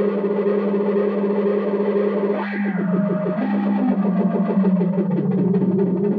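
Electronic tone from a small knob-controlled oscillator box, held steady and then, about two and a half seconds in, turning into a fast pulsing warble whose pitch steps about and slides lower near the end as the knob is turned.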